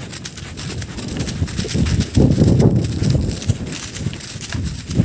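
Small horse running over dry field stubble: uneven hoofbeat thuds with jolting noise from the rider's handheld phone, loudest about two seconds in.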